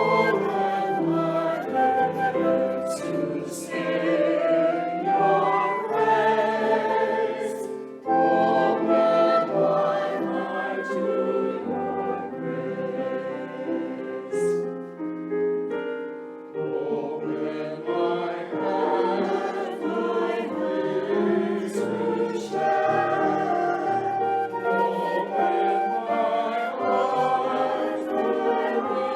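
Choir singing a sacred anthem with instrumental accompaniment, sustained chords changing every second or two.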